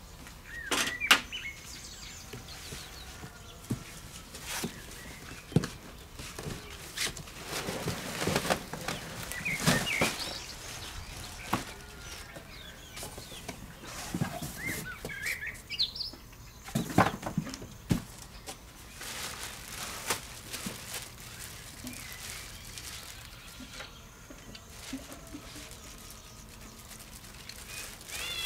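Cardboard box and packaging being handled as a heavy pressure washer is worked out of it: irregular rustling, scraping and knocks, with a few short high chirp-like squeaks.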